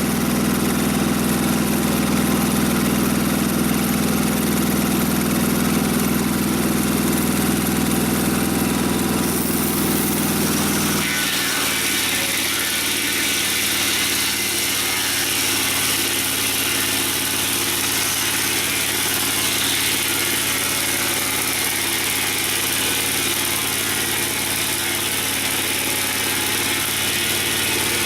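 Engine of a portable sawmill running steadily. About eleven seconds in the sound changes: the deep hum drops away and a high hiss takes over.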